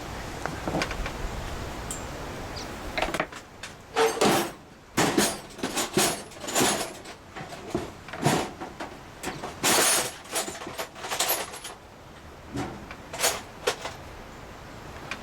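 Metal tools and small parts being handled: a quiet start, then about three seconds in a run of irregular clinks, knocks and rattles that lasts roughly ten seconds and dies away near the end.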